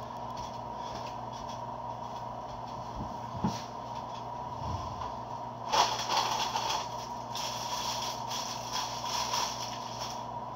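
Paper food wrappers crinkling and rustling as they are handled, starting about six seconds in and going on for several seconds, over a steady background hum.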